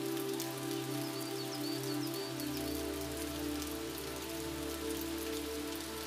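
Steady rainfall with many fine raindrop ticks, over a soft sustained musical drone that moves to a lower note about two and a half seconds in. A few short high chirps come through in the first half.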